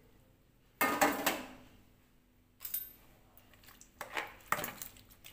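Kitchen clatter: a loud knock about a second in, then a few light knocks and rattles as hands grip a plastic basin and stir pieces of salted squid soaking in hot water.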